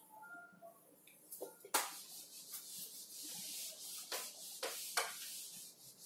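Cloth wiping marker writing off a whiteboard: a steady dry rubbing swish that starts a couple of seconds in, with a few soft knocks as the hand presses against the board.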